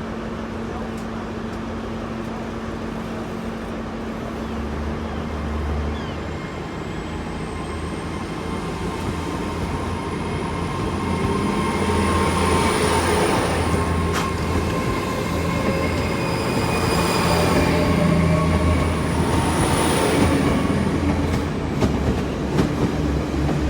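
A ten-coach GWR Class 802 IET bi-mode train pulling out under diesel power, its engines humming. A thin high whine glides up about six seconds in and holds until near the end, and the running noise builds as the coaches go by.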